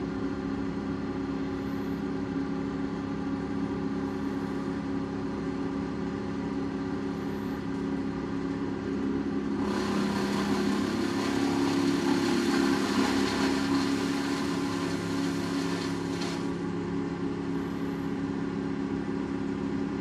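Tree-trimming crew's wood chipper with its engine running steadily. From about ten seconds in, for some seven seconds, it chips branches being fed into it: a louder, noisy chipping over the engine.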